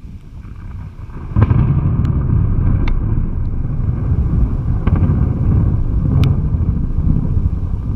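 Thunder: a sudden crack about a second and a half in, then a loud, deep, rolling rumble that goes on, with a few sharp crackles on top.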